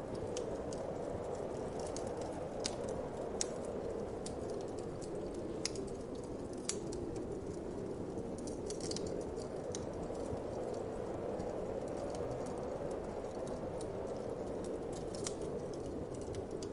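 Wood fire crackling with irregular sharp pops, over a steady whoosh of wind.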